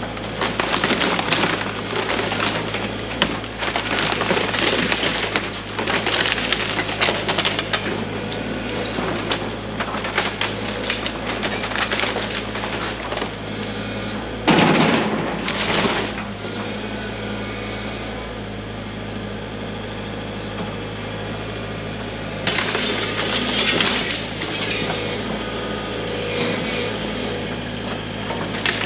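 A Case excavator's engine running steadily while its bucket tears apart a wooden shed: wood cracking, splintering and crashing in repeated spells. The loudest crash comes about halfway through, and another spell of breaking comes near the end.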